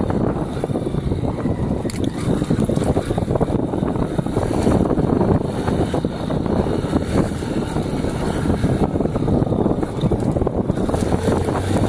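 Motorcycle engine running steadily while riding a rough dirt trail, mixed with frequent knocks and rattles as the bike goes over the ruts.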